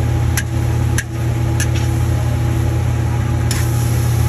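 A gas wok stove runs with a loud, steady low rumble under a large wok of stir-frying noodles. A metal spatula clicks sharply against the wok a few times in the first two seconds, and a brighter sizzling hiss comes in near the end.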